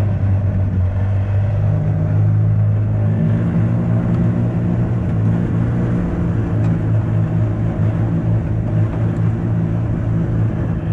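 1980s Yamaha golf cart's two-stroke engine running steadily as the cart drives along, its carburetor freshly cleaned; the engine note rises slightly about two seconds in.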